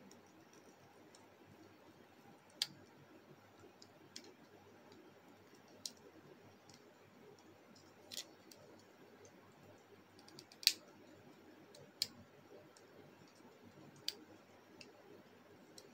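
Hard plastic Bakugan Geoforge Dragonoid toy parts clicking as they are handled and fitted together. About seven sharp clicks come a second or two apart, the loudest about two-thirds of the way in.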